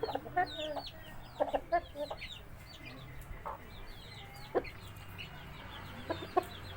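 Chickens clucking in a few short calls, the loudest clustered about the start and again near the end, over a steady stream of high, quick, falling chirps.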